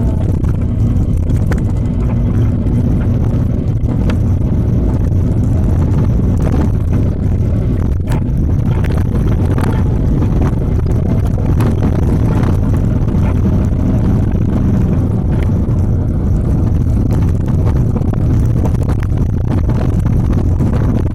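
Minibus engine and road rumble heard from inside the passenger cabin, steady and loud, with frequent small knocks and rattles.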